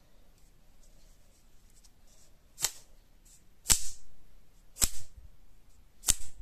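Folded paper clapper flicked sharply so its paper flap snaps open with a loud crack, four times, a little over a second apart.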